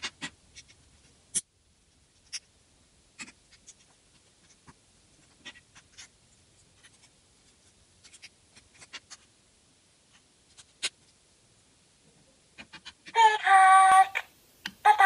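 Small plastic toy pieces clicking and scraping as they are handled and snapped together. Near the end comes a loud, high-pitched, steady cry about a second long, starting again just before the close.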